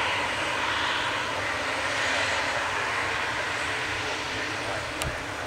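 Howling of an Embraer E195-E2's Pratt & Whitney PW1900G geared turbofan engines as the jet taxis past, a steady hissing whine that swells and eases and fades a little near the end. A single sharp click about five seconds in.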